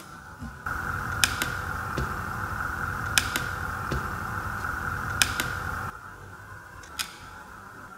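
Sharp clicks, mostly in pairs, about every two seconds, as buttons on a hot-air blower's control panel are pressed to step through its setup menu. Under them runs a steady hiss that gets louder about a second in and drops back abruptly near six seconds.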